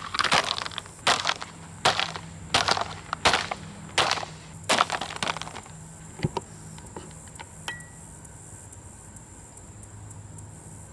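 A plastic box fan being smashed: about eight heavy, crunching blows, each a little under a second apart, followed by a few light clatters of breaking pieces.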